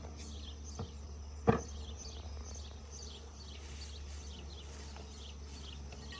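Two knocks about a second and a half in, the second one loud, as a wooden frame is dropped into a beehive box. A bird chirps over and over in the background over a steady low hum.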